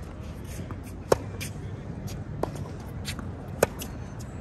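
Tennis rally: tennis balls struck by racquets with sharp pops, the two loudest about a second in and about three and a half seconds in, with fainter hits and bounces between them.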